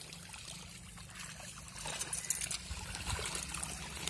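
Water trickling and splashing, getting louder about two seconds in, with small knocks among it.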